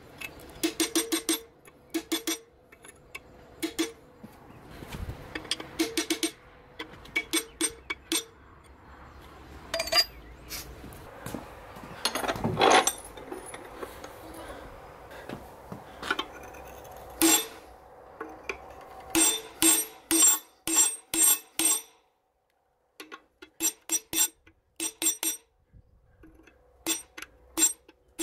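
Hammer tapping a steel punch against a small forged steel dragon head held in a vise: quick runs of sharp, ringing metallic clinks, several a second, with short pauses between runs.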